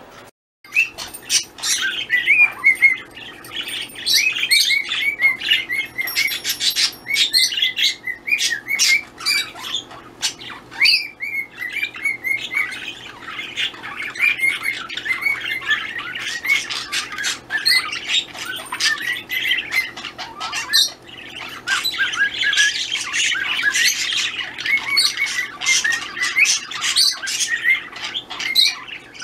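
Pet parrots calling: a dense run of short chirps and squawks, with a couple of brief pauses.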